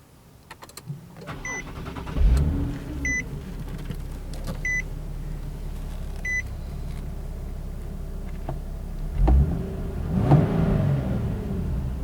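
Nissan 370Z's 3.7-litre V6 with a Speed Daddy full exhaust starting up: a few clicks and four evenly spaced warning-chime beeps, then the engine fires about two seconds in and settles into a steady low idle. Near the end there are two short rises in revs.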